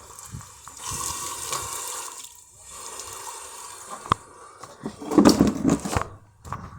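Water running, as from a tap or hose. A sharp click comes about four seconds in, then a louder spell of clattering.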